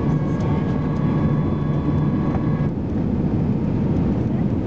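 Steady cabin roar of an Airbus A320-214's CFM56 engines and airflow on approach, heard from inside the cabin over the wing. A faint high whine rides on it and cuts off suddenly a little past halfway.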